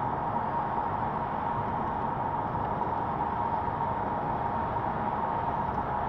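Steady road and wind noise inside a moving car's cabin: an even hiss and rumble with a thin, steady high tone over it.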